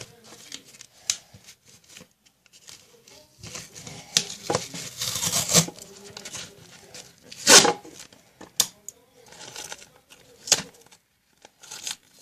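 Adhesive tape being pulled off the roll and wound around a paper wallet by hand: rasping, tearing sounds, a longer one about four to six seconds in and a sharp loud one near eight seconds, between crinkling and light clicks of handling.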